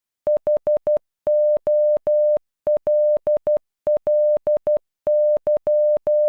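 Morse code beeps, a single steady electronic tone keyed on and off, spelling "HOLLY": four short dits, three long dahs, dit-dah-dit-dit twice, then dah-dit-dah-dah. Each beep starts and stops with a faint click.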